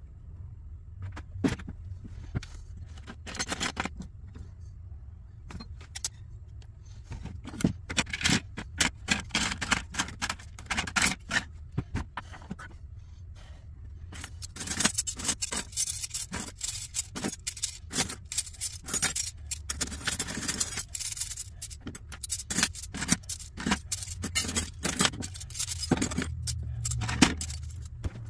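Computer expansion cards, loose screws and metal brackets clattering and scraping on a wooden workbench as the cards are handled and piled up: scattered clicks and knocks, with a dense run of clattering about halfway through. A low steady hum runs underneath.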